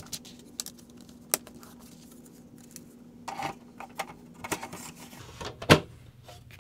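Plastic clicks and short scrapes as a Synology DS415+ drive caddy holding a Western Digital Red hard drive is handled and slid into the NAS drive bay. Near the end comes one loud, sharp snap as the caddy clicks into place.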